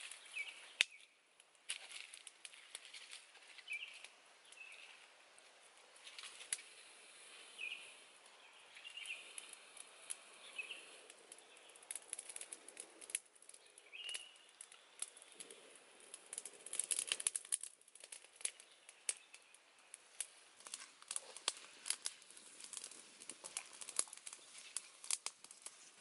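Wood cooking fire crackling under an iron wok, with sharp irregular pops and clicks that come thickest in the second half. Small birds chirp briefly now and then.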